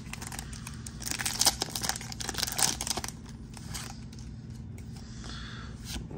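Foil wrapper of a Pokémon TCG booster pack being torn open and crinkled. The crackly rustling is loudest in the first half and then settles into quieter handling.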